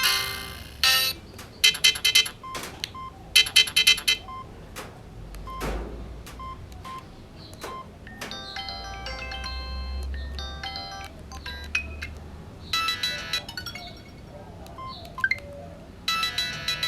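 Samsung SGH-T509 mobile phone playing its ringtone melodies in short bursts, several different electronic tunes starting and breaking off every second or two, with sharp clicks between them.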